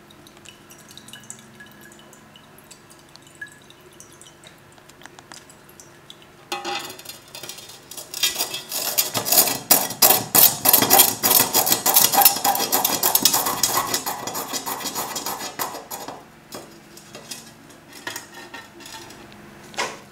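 A glass rod stirring inside a glass bottle: a rapid run of glass-on-glass clinking and scraping that starts about six seconds in, is loudest in the middle and dies away a few seconds before the end.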